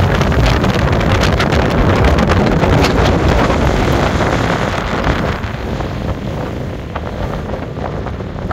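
Strong mountain wind buffeting the microphone in gusts, easing somewhat about five seconds in.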